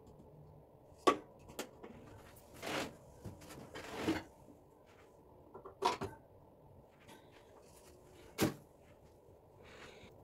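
Toiletry bottles, jars and the cabinet being handled at a bathroom mirror cabinet: four sharp clicks and knocks as things are picked up and set down, with two short rustles in between.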